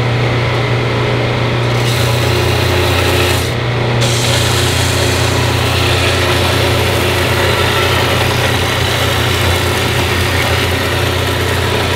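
Laguna 6/12 combination belt/disc sander running with a steady motor hum while a laminated wooden board is pressed against the abrasive, giving a loud rasping sanding noise. The rasp starts about two seconds in, breaks off briefly when the board is lifted, then carries on.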